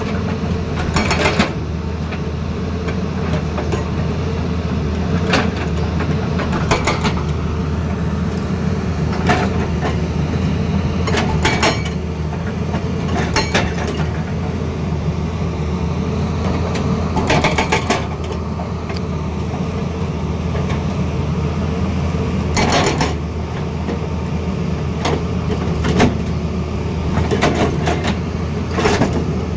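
Excavator engine running steadily, with a few sharp knocks or clanks at irregular moments. They come too seldom to be a hydraulic breaker hammering.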